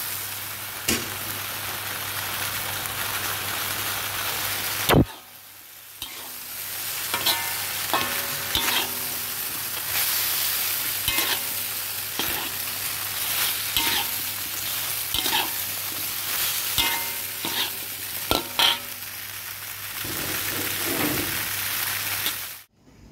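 Chicken and vegetables sizzling in a hot metal wok while being stir-fried, a metal spatula scraping and clinking against the pan again and again. A sharp knock comes about five seconds in, and the sizzling cuts off abruptly just before the end.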